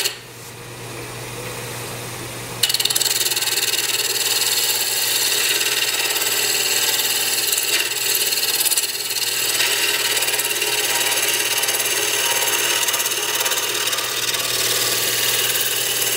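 Wood lathe running with a skew chisel making a peeling cut along a spinning spindle blank: a steady hiss of shavings being cut off over the lathe's low hum. The cut starts about two and a half seconds in and runs on steadily.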